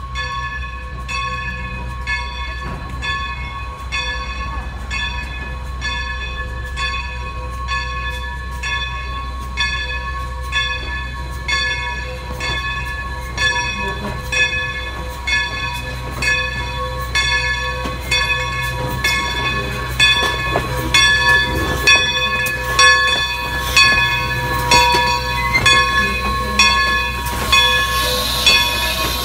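Steam locomotive No. 40's bell ringing over and over in a steady rhythm as the engine moves slowly past, over a low rumble from the locomotive. The ringing grows louder as the engine draws close, with a hiss of steam near the end.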